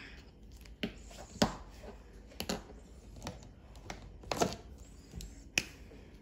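Irregular sharp clicks and taps of drawing tools being handled on paper, about eight in six seconds, the loudest about a second and a half in.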